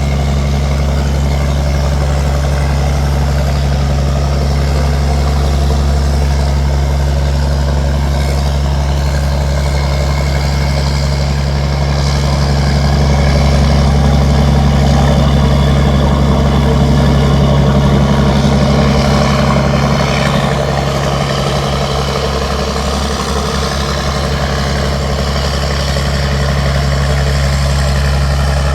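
River tugboat's engine running steadily with a deep, even hum. It grows a little louder about halfway through, then eases back.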